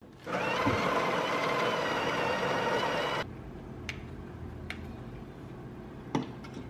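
Coffee grinder running for about three seconds and cutting off sharply. Then a few light clicks and a louder knock about six seconds in, from the tamper and portafilter as espresso grounds are tamped.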